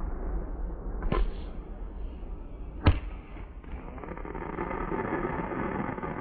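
Fireworks going off: two sharp bangs, about a second in and just before the middle, over a steady background hiss.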